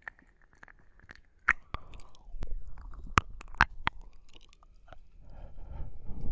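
Wet tongue and lip sounds of slow ear-licking ASMR, close on a binaural microphone: scattered sharp wet smacks and clicks, with a soft breathy rush near the end.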